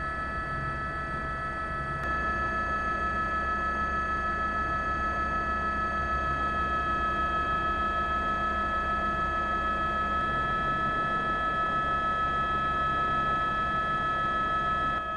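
A machine running steadily: a constant high whine of several fixed tones over a low rumble, a little louder from about two seconds in.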